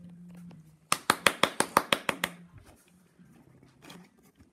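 A short burst of hand clapping, about a dozen quick, even claps over a second and a half, applauding the end of a told story.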